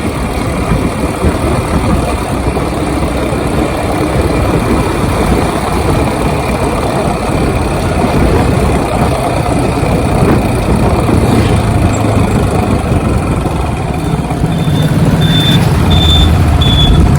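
Road and traffic noise with heavy wind rumble on the microphone, as from riding a motorcycle. From about fourteen seconds in, a run of short high beeps repeats about twice a second.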